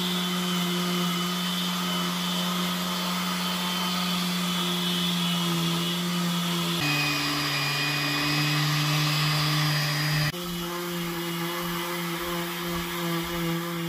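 Electric random orbital sander with a dust-extraction vacuum hose attached, running steadily as it sands a varnished wooden window frame. It is a steady hum that drops to a lower pitch for about three seconds past the middle, then returns.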